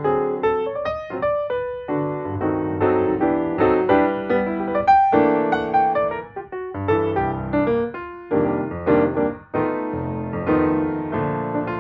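Background music: piano or keyboard playing a melody with chords, the notes struck one after another and fading.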